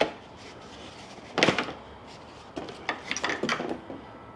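Hard parts being handled: a sharp click, a louder knock or scrape about one and a half seconds in, then a run of small clicks and rattles, as a piece just pulled off a truck's tow mirror is worked by hand.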